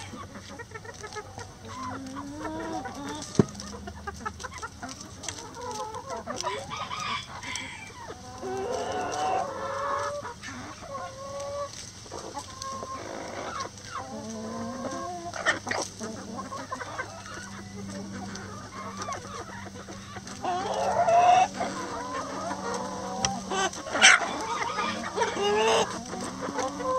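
A flock of hens clucking and calling over one another as they feed, with a few sharp taps among the calls.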